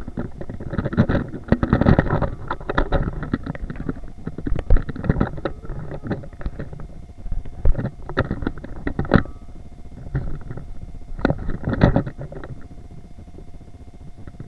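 Rumbling handling noise on an action camera's microphone, mixed with the clatter of a wire shopping cart being pushed across a smooth store floor: irregular knocks and rattles over a low rumble. The loudest knocks come in clusters about two seconds in, around eight to nine seconds and around twelve seconds, and the sound quietens near the end.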